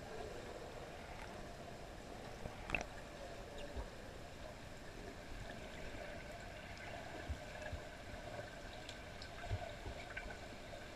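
Underwater ambience of a swimming pool heard by a submerged camera: a steady hiss with a faint hum of a few steady tones. A few faint clicks come through, the sharpest about three seconds in.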